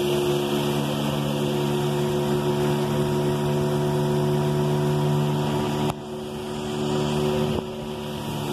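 A boat motor running at a steady drone. Its loudness drops suddenly about six seconds in, climbs back, and drops again near the end.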